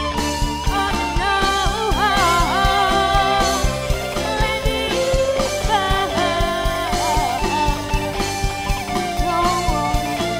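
Live band playing the closing instrumental stretch of a pop ballad cover, with drum kit, bass and guitar chords under a wavering melody line.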